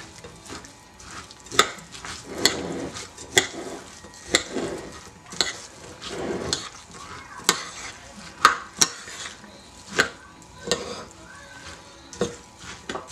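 A hand squishing and kneading wet dolma filling of raw rice, chopped vegetables and tomato paste in a large bowl. A sharp click comes about once a second against the soft, wet mushing.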